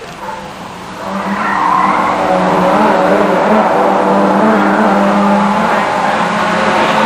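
Rally car approaching at speed, its engine note wavering up and down with the throttle and growing loud from about a second in.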